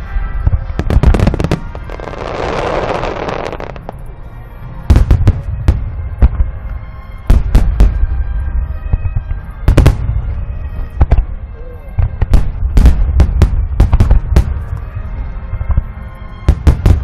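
Fireworks display: aerial shells bursting in clusters of sharp booms, with a few seconds of hiss about two seconds in and short lulls between volleys.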